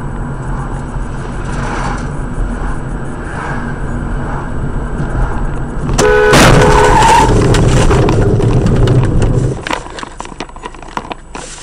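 Car cabin road and engine noise, then about six seconds in a sudden loud bang with a short car-horn blast over it, followed by about three seconds of loud, rough noise of a collision or hard braking that dies down near ten seconds.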